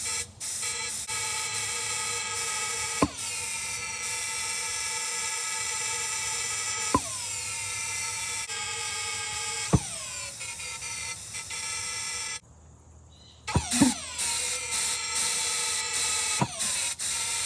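Small homemade valved pulse jet firing with a high-pitched buzzing drone, rich in harmonics, while compressed air is blown into it. Sharp pops come every few seconds, each followed by a falling pitch. The sound drops away briefly about twelve seconds in. It runs only on air assist and will not keep running on its own.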